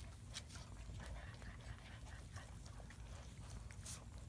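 German Shepherd puppies playing on a concrete patio: faint scuffling and claws ticking on the concrete, with two sharper clicks, one about half a second in and one near the end.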